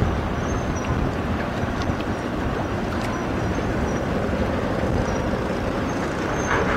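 Steady low rumble and rushing water of a container ship passing close, its bulbous bow pushing a breaking bow wave.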